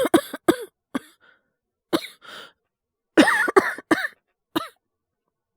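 A man coughing in short fits: a quick cluster of coughs at the start, a few single coughs, then a fast run of about five coughs about three seconds in and one more after it. The coughing is acted, the voice actor playing someone ill with a cold and fever.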